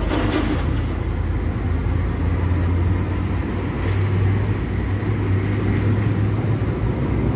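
Heavy diesel machinery engine running steadily with a low hum, with a brief clatter right at the start.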